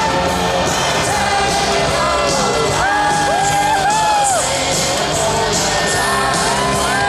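Music with long held sung notes played over a large outdoor crowd, with scattered whoops and shouts from the crowd.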